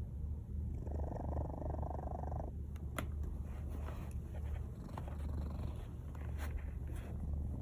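Sleeping cat snoring: a steady low rumble, with one louder, longer breath from about one to two and a half seconds in, and a few faint clicks near the end.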